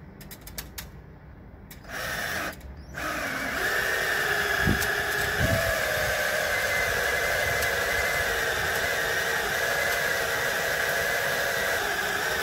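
Cordless Makita drill spinning a hole saw through the plastic wall of a water tank. The motor starts about two seconds in and pauses briefly, then runs in a steady whine while cutting, and stops at the end.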